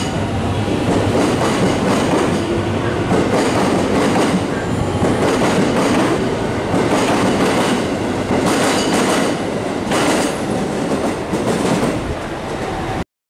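JR West 207 series electric commuter train pulling out of the platform, its cars rolling past with a clickety-clack of wheels over rail joints. The sound cuts off suddenly near the end.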